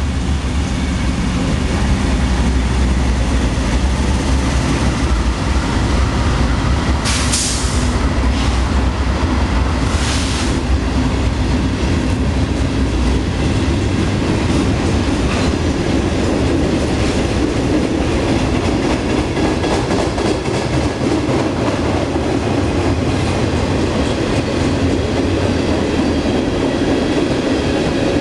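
Norfolk Southern freight train passing close by. The diesel locomotives' engines rumble through roughly the first dozen seconds, then the freight cars roll past with a steady clatter of wheels over the rail joints. Two short hisses sound about 7 and 10 seconds in.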